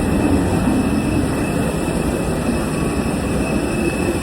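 Steady rumbling cabin noise aboard an airliner during boarding, with a faint steady whine above it.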